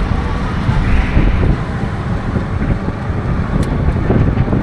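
Street traffic noise, with wind buffeting the microphone as it is carried along.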